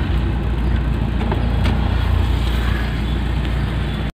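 Car cabin noise: a steady low rumble of the engine and road, heard from down in the footwell, that cuts off abruptly near the end.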